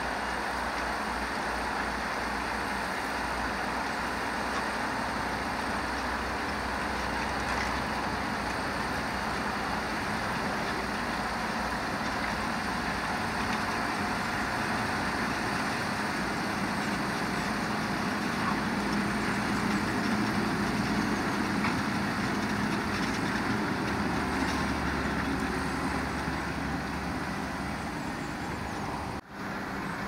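JCB Fastrac 4220 tractor's six-cylinder diesel engine running steadily under load while pulling a reversible plough through the soil. It grows a little louder and deeper past the middle, and there is a brief dropout near the end.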